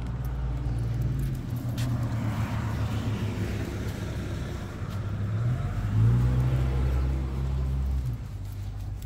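Car engine running close by, a steady low hum that rises in pitch about halfway through and cuts off about a second before the end, with a hiss that swells and fades in the middle as traffic passes.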